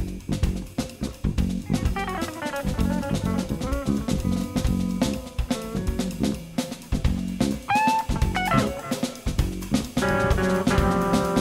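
A live jazz trio of electric guitar, electric bass and drum kit playing together, the drums busy throughout under a walking bass line. The electric guitar plays single-note lines with notes that bend or slide in pitch, and a held chord rings out near the end.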